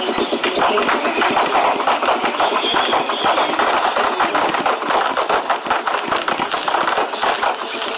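Aerial fireworks shells bursting in rapid succession: a continuous barrage of sharp bangs and crackles, several each second, with little deep boom.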